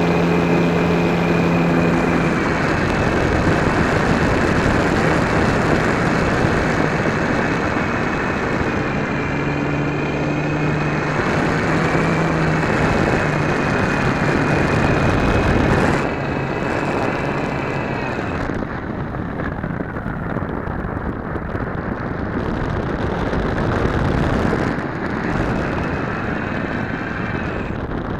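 RC model airplane's motor and propeller running in flight, heard from a camera on the plane with heavy wind rush over the microphone. The sound drops in level about halfway through, and the high hiss thins out a couple of seconds later.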